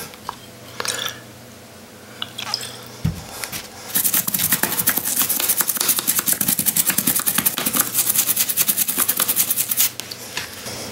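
A small bristle brush scrubbing a circuit board in rapid back-and-forth strokes, cleaning moisture corrosion off the pads; the fast run of strokes starts about four seconds in and stops just before the end. A few light clicks and a single knock come before it.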